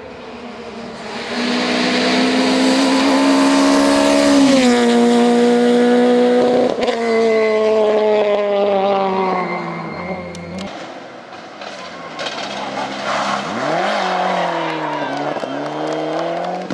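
Rally car engines at full throttle on a special stage: revs climb hard, drop sharply at an upshift, then fall away as the car leaves. Near the end a second run has the revs rising and falling twice through a bend.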